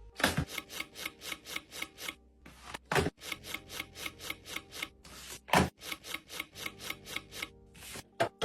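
Rapid, evenly spaced rubbing or scraping strokes, about four a second, with a louder stroke every two and a half seconds or so.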